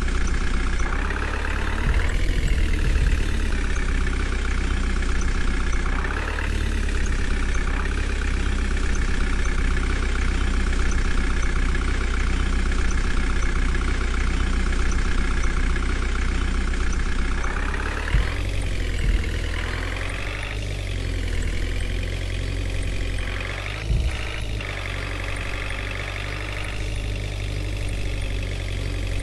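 Diesel engine of a JCB 3DX backhoe loader running under load while digging and loading mud, its note rising and falling several times as the hydraulics work. A few short knocks come in the second half, the loudest about 24 seconds in.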